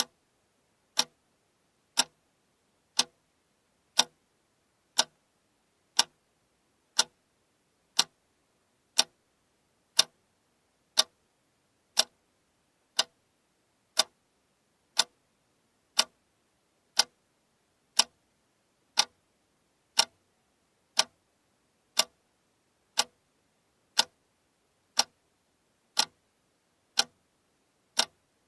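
Alarm clock ticking steadily, one sharp tick each second.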